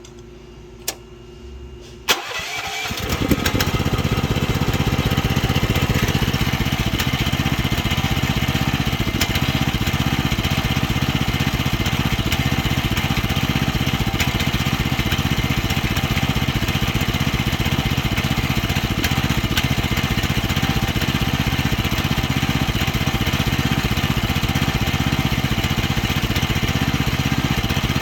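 Small carbureted gasoline engine of a mini excavator catching about two seconds in, then running steadily. The engine is hard to keep running, which the owner puts down to low compression or an untuned carburetor.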